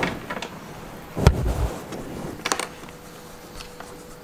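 A few sharp knocks and clicks from handling, the loudest about a second in with a low thump, then quieter.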